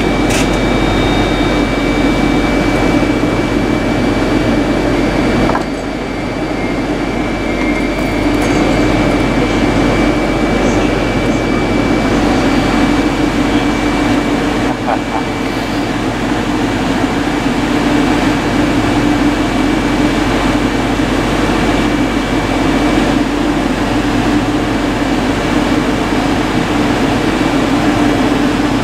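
Class 380 electric multiple unit standing at the platform with its onboard auxiliary equipment running: a steady hum with a thin high whine over it. The level dips briefly about six seconds in.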